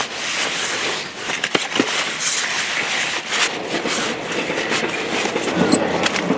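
Nylon stuff sacks and fabric rustling and crinkling as they are pushed and stuffed into a backpack, a busy run of short scrapes and crackles.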